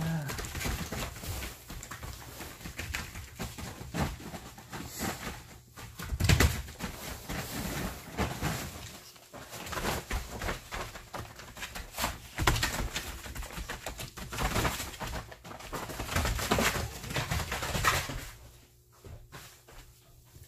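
Two dogs play-fighting: low growls mixed with scuffling and rustling as they scramble over a plastic tarp, dying down near the end.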